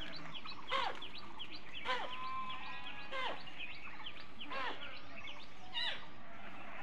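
A flock of sheep bleating, one call after another about every second or so, with many small birds chirping throughout.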